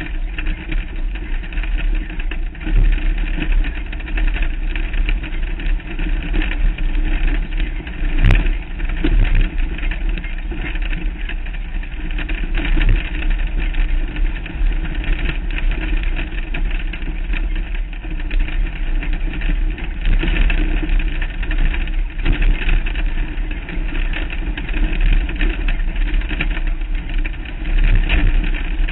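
Off-road race vehicle driving on a rough dirt track, heard from a camera on its hood: the engine runs steadily under a deep rumble and rattle. There is one sharp knock about eight seconds in.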